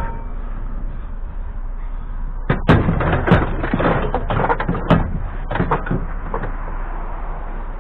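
Metal parts clanking and knocking as scrap is handled and loaded: a rapid run of hard impacts starting about two and a half seconds in and lasting about three and a half seconds, with a few louder bangs among them.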